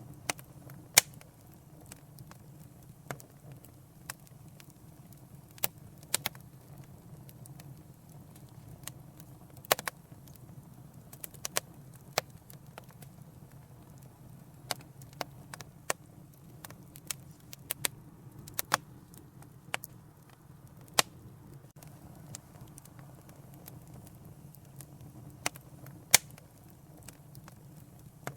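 Wood fire burning in a fireplace: a soft steady rumble of flames with irregular sharp crackles and pops, a few of them loud.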